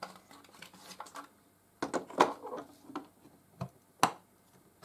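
Irregular clicks, taps and light rustling of hands handling the plastic body and parts of an upright vacuum cleaner, with sharper knocks about two and four seconds in.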